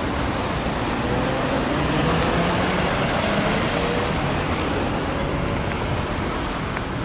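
Road traffic with city buses and cars passing; a bus engine's pitch glides up and down in the first few seconds as it pulls by, loudest about two seconds in.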